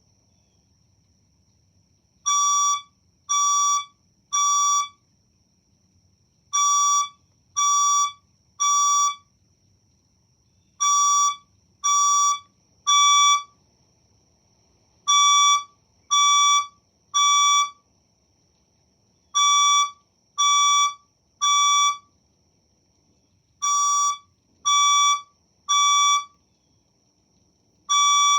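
Fire alarm speaker sounding the temporal-3 evacuation tone: groups of three loud beeps about a second apart, with a pause between groups, repeating about every four seconds. It starts about two seconds in.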